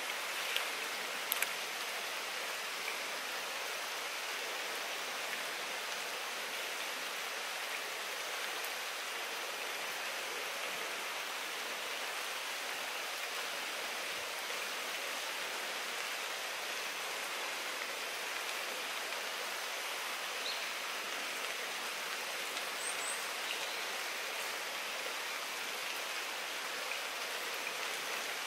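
Steady, even hiss of water, rain or running water in the surroundings, with nothing else standing out.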